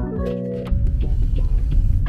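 Background music with plucked string notes and light percussion; a new phrase comes in at the start and grows fuller in the low end under a second in.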